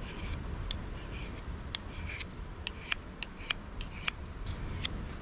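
Knife blade stroked back and forth across a small handheld sharpening stone: a run of short scraping strokes, roughly one a second, with sharp metallic ticks between them.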